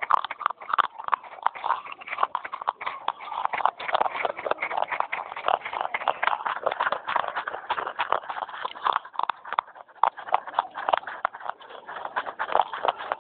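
Fast, crisp crunching of baked terracotta clay-pot pieces being chewed close to the microphone: a dense, unbroken run of sharp crackles.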